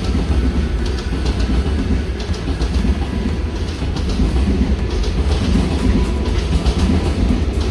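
Freight train passing close by: the wagons rumble along the rails with a steady rhythmic clatter of wheels over rail joints.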